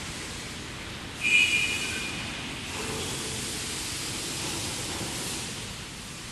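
Steady factory-workshop background noise, with one brief high-pitched metallic squeal about a second in.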